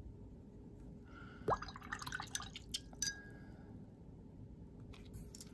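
Watercolor paintbrush dipped into a glass water jar: a water plop with a quick rising pitch about a second and a half in, then a couple of seconds of small clicks and clinks against the glass.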